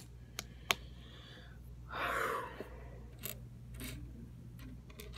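Plastic Lego pieces clicking as they are handled and pressed together: several sharp, separate clicks spread through, with a short breathy rush about two seconds in, over a low steady hum.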